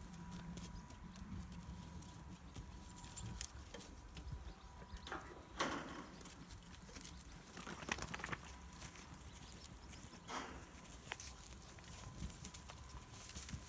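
Goats moving about on a dry dirt floor: hooves shuffling and stepping, with scattered light knocks.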